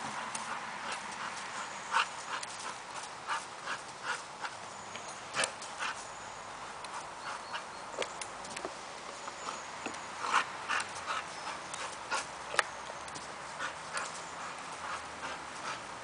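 A bulldog leaping up at a toy hung from a branch and landing again and again: irregular short thumps and rustles in the grass and fallen leaves, a few a second.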